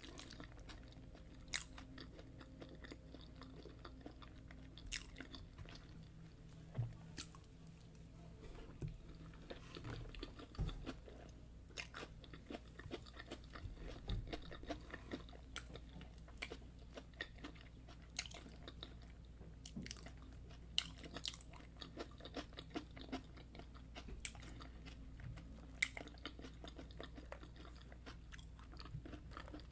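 Close-miked chewing and biting of fried yam and egg sauce, with crisp crunches and many sharp mouth clicks at irregular intervals. A faint steady low hum runs underneath.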